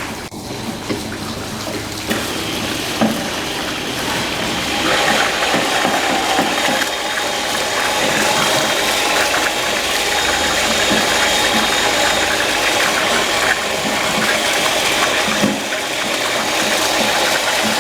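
Machinery running with a rapid, continuous mechanical clicking rattle, growing louder a couple of seconds in and again a few seconds later.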